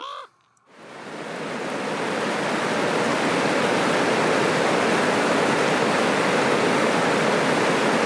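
A short raven caw right at the start, then a fast-flowing mountain stream rushing steadily over rocks, fading in about a second in.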